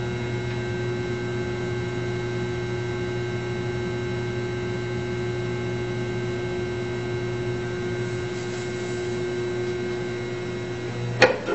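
AC-powered solenoid humming steadily at mains frequency under load. The hum stops abruptly about eleven seconds in, with a sharp click.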